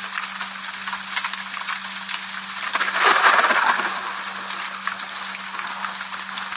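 Rain falling steadily, with many individual drops ticking sharply, and a louder rush for about a second in the middle. A faint steady hum runs underneath.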